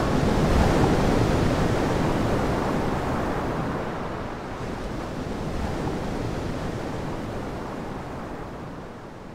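Ocean surf washing in a steady hiss, slowly fading out.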